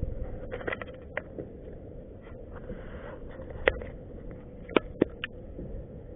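Handling noise on a plastic fishing kayak: several sharp clicks and knocks from rod, line and gear being worked by hand, two of them close together about five seconds in. Under them run a low rumble of wind and water and a faint steady hum.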